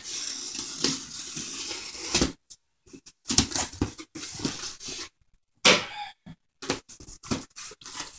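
Kitchen knife slicing through the packing tape along a cardboard box's seam for about two seconds, then the cardboard flaps being pulled open, with bursts of rustling and crackling.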